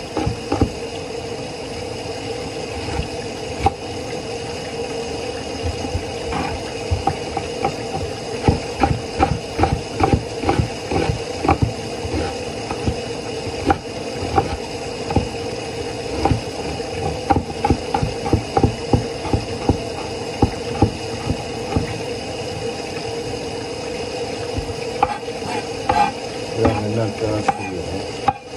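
Kitchen knife chopping a red onion on a wooden cutting board: a run of quick, sharp taps of the blade hitting the board, in bursts, over a steady background hum.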